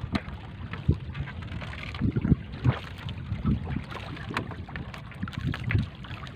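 Gusty wind rumbling on the microphone, with scattered small clicks and rustles as a gill net is hauled by hand over a boat's side rail.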